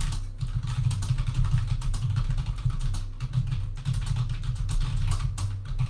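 Fast, continuous typing on a computer keyboard, the keystrokes carrying a heavy low thud.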